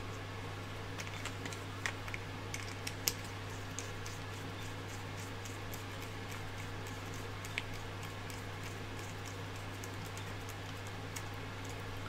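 Scattered light clicks and taps of small plastic 3D-printer parts and wiring being handled, over a steady low hum.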